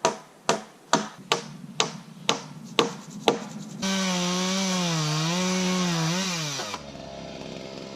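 A hammer driving nails into a wooden frame, about two blows a second, then a two-stroke chainsaw runs for about three seconds with its engine speed wavering before it drops off.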